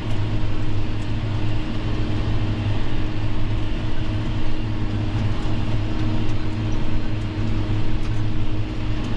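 John Deere tractor engine running with a steady drone, heard from inside the cab while pulling a subsoiler through the field.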